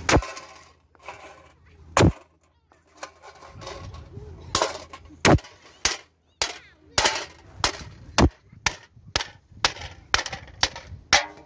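Wood being chopped into small pieces for the campfire with an edged tool. It is a series of sharp knocks: a few are spaced a couple of seconds apart at first, then they come steadily at about two a second.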